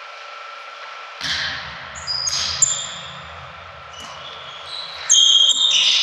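Volleyball rally on a sports-hall court: sharp ball hits about a second and two and a half seconds in, with sneakers squeaking on the court floor. The squeaks grow louder and busier from about five seconds in.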